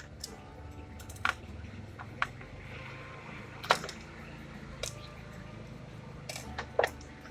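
Scattered sharp clicks and taps, about seven in all, of laptop parts being handled and fitted, over a steady low hum.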